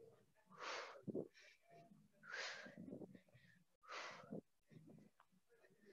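Faint, sharp breaths out, three of them about a second and a half apart: a woman exhaling with each rep of a punch-and-toe-touch exercise.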